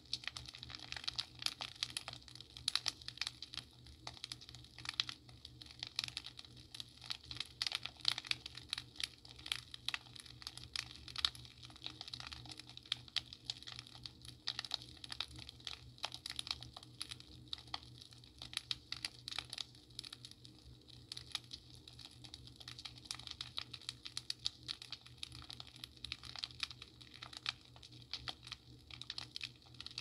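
Fireplace crackling: a dense, irregular run of small snaps and pops, over a steady low hum.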